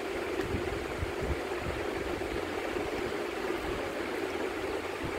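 Steady rushing background noise with a low hum, unchanging throughout.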